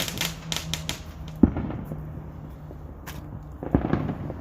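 Fireworks crackling and popping: a rapid string of crackles in the first second, one sharp bang about a second and a half in, then another cluster of pops near the end.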